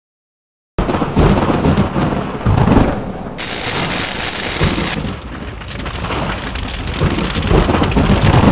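Sound effect for an animated logo: after a moment of dead silence, a loud rumbling, crackling noise cuts in and runs on in surging swells, like fire or thunder.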